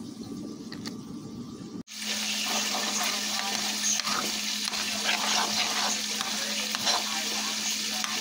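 About two seconds in, after a break, a steady sizzling hiss with small crackles and a low hum: food cooking on the stove, while a metal spoon stirs buttered rice in a pot.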